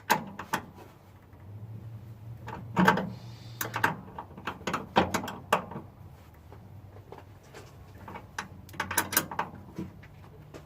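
Scattered metallic clicks and knocks of hand tools and hardware as a new starter solenoid is being fastened in place, coming in small clusters with short gaps between them.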